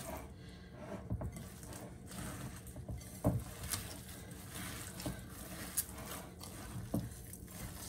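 Hands squeezing and kneading a wet raw meatloaf mixture of ground beef and sauce in a bowl: soft, faint squishing, with a few small knocks against the bowl.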